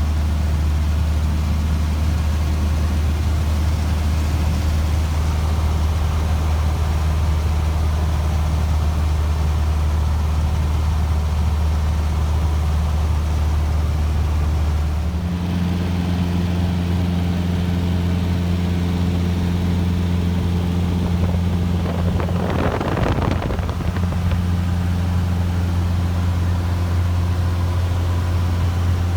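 Cessna 150J's Continental O-200 four-cylinder piston engine and propeller droning steadily in flight. About halfway through the engine note shifts slightly in pitch as the RPM changes, and a brief rushing hiss rises and fades about three quarters of the way in.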